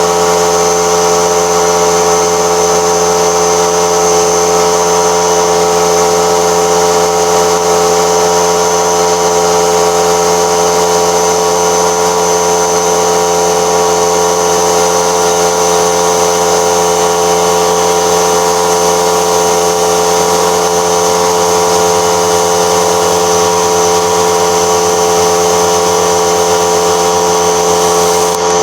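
Steady machine hum from an electric motor running without a break, with a constant high whine above it and no change in pitch or level.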